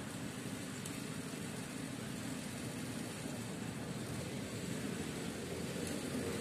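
A minibus driving past on the road, a steady engine and tyre rumble that grows slightly louder in the second half as it comes close.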